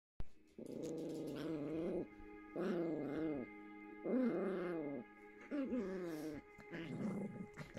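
Yorkshire Terrier puppies play-growling as they wrestle: about five drawn-out growls, each a second or so long and wavering in pitch, with short gaps between them. A faint steady tone runs under them.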